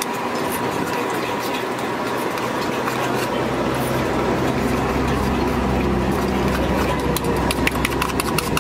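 A spoon beating eggs in a small steel bowl, clinking metal on metal, the clinks coming thicker near the end. Under it is steady street noise, with a low engine rumble that swells from about three seconds in.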